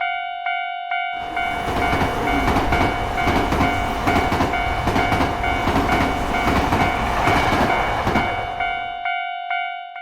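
Japanese level-crossing alarm ringing its repeated kan-kan chime at about two strikes a second, while a train passes over the crossing with a rumbling clatter of wheels on rail joints from about a second in until about a second before the end.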